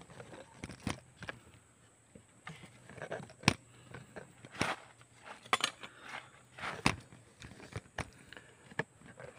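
Footsteps crunching on dirt and loose stones, irregular steps with the sharpest one about three and a half seconds in.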